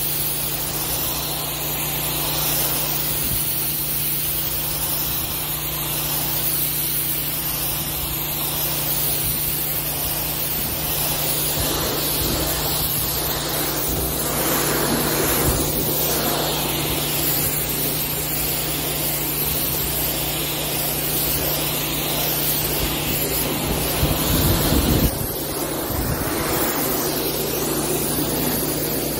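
Pressure washer running steadily: a constant motor and pump hum under the hiss of the high-pressure jet striking concrete. The spray noise gets briefly louder about 24 seconds in.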